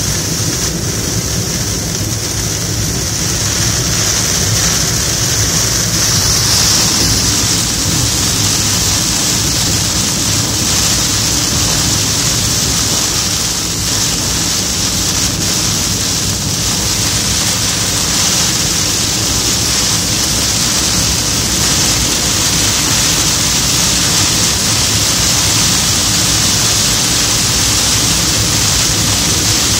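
Heavy rain pelting a car's roof and windshield, heard from inside the cabin while driving, over a steady low hum of road and engine.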